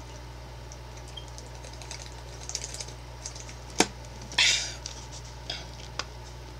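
Thin plastic water bottle crackling and clicking while someone drinks from it, with one sharp crack a little past halfway followed by a short hiss.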